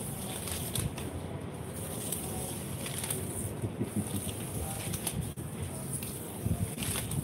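Colourful plastic packets rustling and crinkling as they are handled over a clear plastic tub, with irregular crackles.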